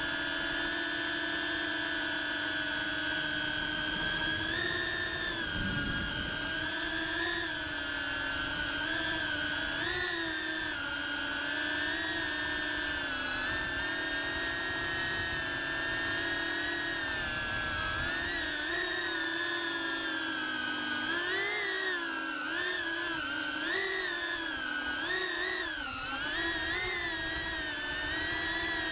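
Cinewhoop FPV drone's propellers whining in flight. The pitch holds steady at first, then wavers up and down with throttle changes, more often in the last third.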